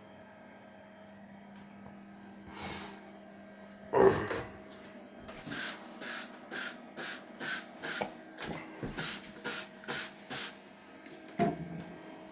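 A trigger spray bottle of cleaner squirted about ten times in quick succession, roughly two squirts a second. A louder thump comes about four seconds in and a knock near the end, over a steady low hum.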